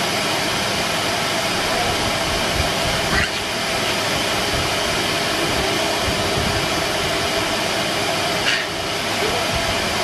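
Numatic Henry vacuum cleaner running steadily: a constant rush of air with a steady motor whine.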